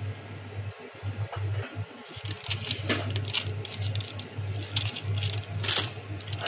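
Small hard household objects clinking and knocking as they are handled, a few sharp clinks among softer taps, over a low steady hum.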